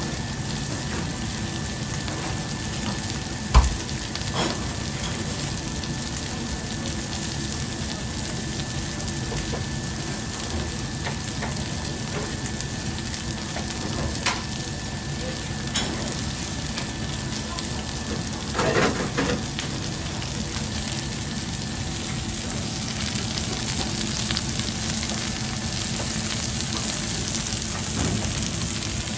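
Meat and vegetables sizzling on a hot flat-top griddle, a steady hiss. A sharp knock comes about three and a half seconds in, and a few lighter clicks follow later.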